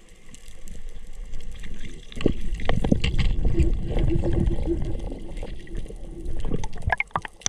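Water moving and gurgling around a freediver and his camera underwater, with scattered clicks and knocks; it grows louder about two seconds in.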